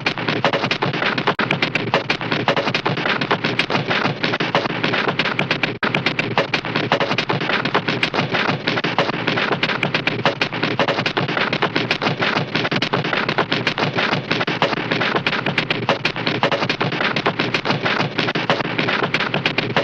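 A Looney Tunes cartoon sound effect: a long, dense rattle of rapid sharp cracks, like machine-gun fire, with a brief break about six seconds in.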